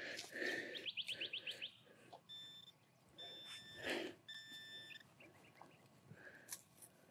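Hands scraping through soil, then three short electronic beeps, each under half a second, from a handheld metal-detecting pinpointer sounding over a metal target in the hole.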